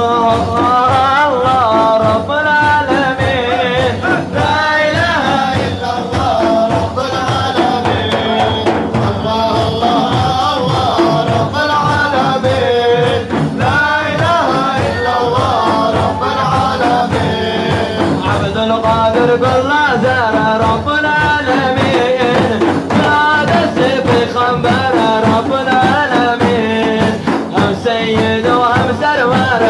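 Men singing a devotional hymn (ilahi) over large frame drums (daf) beaten in a steady, driving rhythm.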